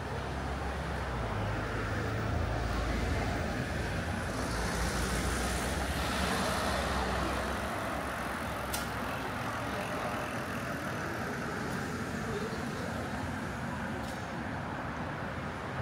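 City street traffic noise. A motor vehicle passes close with a low engine rumble that fades out about halfway through, over the steady wash of traffic.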